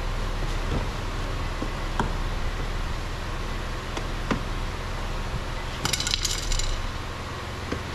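Scattered sharp clicks of hand tools and small metal fasteners being handled while 10mm screws are taken out of a car door, with a brief metallic jingle about six seconds in, over a steady low hum.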